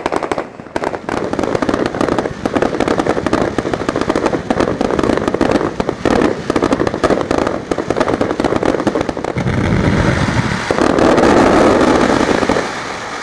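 Rapid-fire volley fireworks (machine-gun style shells) going off in a dense string of pops and bangs. About ten seconds in, a starmine barrage joins in and the bursts overlap into a near-continuous loud crackle, easing off just at the end.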